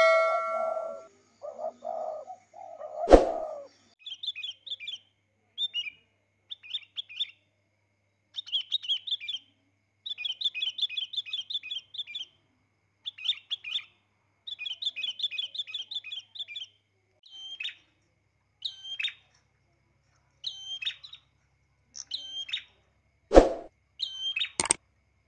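Birds chirping: quick runs of short high chirps, then single high falling calls a second or so apart, with dead silence between them. A ringing ding fades out at the start, and a few sharp clicks come about three seconds in and near the end.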